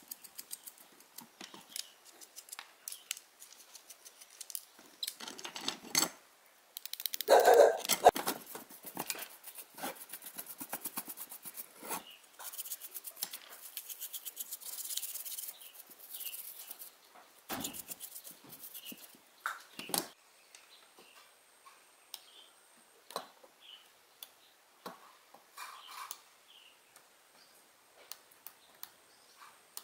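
Hand work on small parts: scattered clicks and light knocks, with a louder clatter about seven seconds in and a fast, even run of clicks shortly after.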